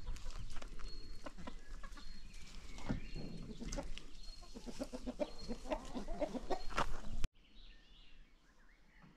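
Chickens clucking, mixed with clicks and short high calls. About seven seconds in the sound cuts off abruptly to a much quieter stretch of faint bird chirps.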